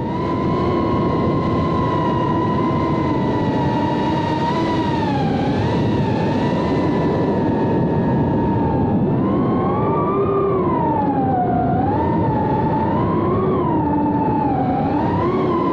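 Geprc Cinelog 25 cinewhoop's brushless motors and propellers whining in flight over a steady rushing noise. The pitch wavers up and down with the throttle, with the biggest swings in the second half.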